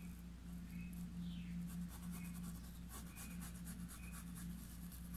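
Paintbrush bristles rubbing on fabric stretched in an embroidery hoop: faint, repeated scratchy strokes as acrylic paint is brushed and blended, over a steady low hum.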